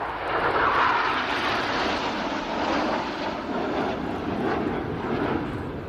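Jet engine noise from BAE Hawk T1 trainer jets flying past in formation, a loud, even roar that peaks about a second in and then eases slowly.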